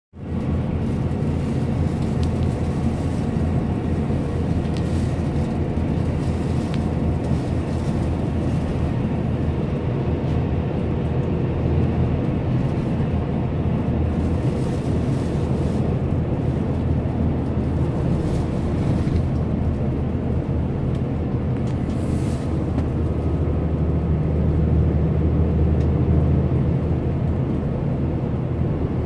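Steady low rumble of a bus's engine and tyres at highway speed, heard from inside the passenger cabin.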